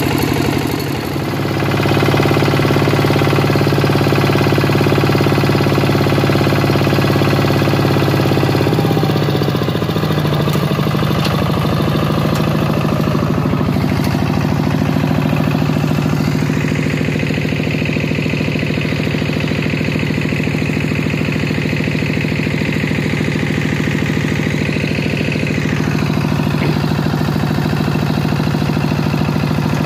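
Single-cylinder diesel engine of a two-wheel walking tractor running steadily while it tows a loaded timber trailer. Its pitch drops about nine seconds in and then holds steady.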